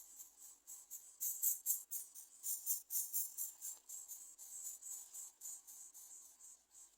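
Insects chirring: a fast, high-pitched pulsing trill that swells and fades throughout.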